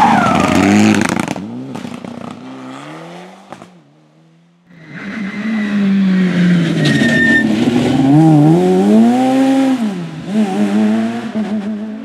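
Mitsubishi Lancer Evolution IX rally car's turbocharged four-cylinder engine passing at full throttle and fading away. After a brief quiet gap about four seconds in, another rally car is heard approaching, its engine revving up and down repeatedly through the gears and getting louder.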